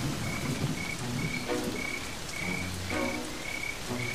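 Steady rain with frogs croaking: a low, pulsing croak about every second and a half over a short high chirp repeating about twice a second.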